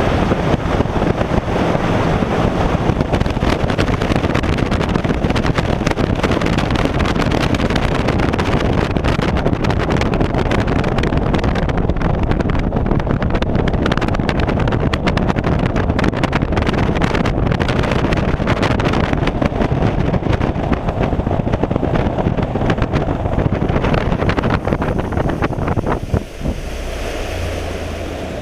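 Bass boat running across a lake at speed: wind buffeting the bow-mounted camera's microphone and water rushing past the hull, with the outboard motor under it. About two seconds before the end the rush falls away as the boat slows, leaving a lower, steady engine hum.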